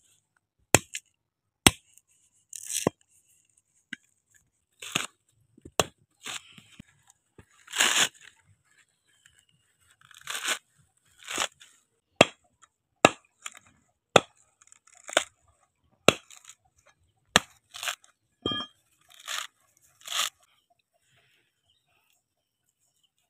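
A coconut being dehusked: a heavy blade chopping and prying into the dry fibrous husk, and the husk torn off in strips by hand. It is a series of sharp cracks and short ripping tears at uneven intervals, with silence between them, and it stops near the end.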